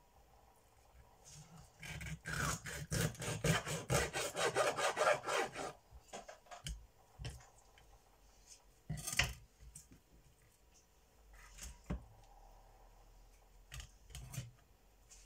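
Kitchen knife sawing back and forth through a whole sea bass on a wooden cutting board: a quick run of rasping strokes for a few seconds as it cuts the fish into pieces, then a few scattered knocks and taps on the board.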